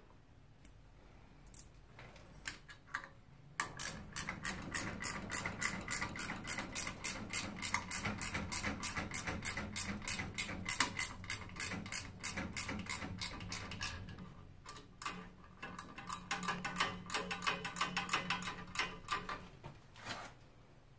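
Rapid, even mechanical clicking, several clicks a second, starting a few seconds in, easing off briefly about two-thirds of the way through, then stopping shortly before the end.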